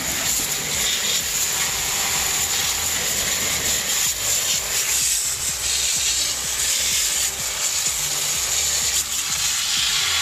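Garden hose spraying a jet of water onto a freezer's iced-up evaporator coil and copper tubing to melt the ice build-up, with a steady hiss.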